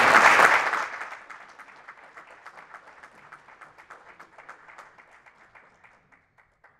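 Audience applauding: a full round of clapping at first that thins after about a second into scattered claps, fading away and stopping abruptly near the end.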